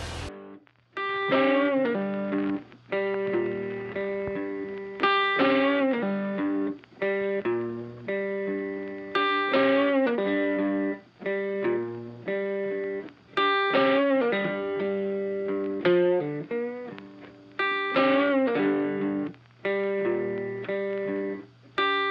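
Background music led by a plucked guitar, repeating a short phrase about every four seconds.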